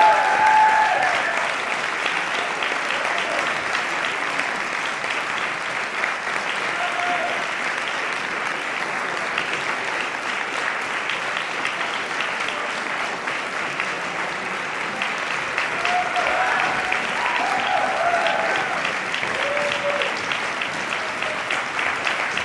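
Audience applauding steadily, with a few voices calling out about two-thirds of the way through.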